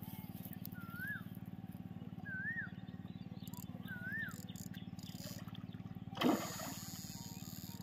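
A hooked mrigal carp splashes once at the surface about six seconds in, the loudest sound, over a steady low hum. Earlier a bird gives three short whistles that rise and then fall.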